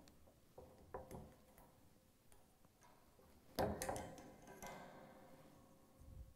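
Faint plastic clicks as the tine roll positioner clips are unlocked and worked off the dishwasher rack's coated wire, with a sharper snap about three and a half seconds in that rings on briefly.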